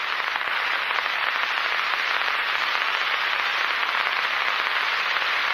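Steady radio static, an open communications channel hissing and crackling between transmissions on the Apollo 1 spacecraft radio recording.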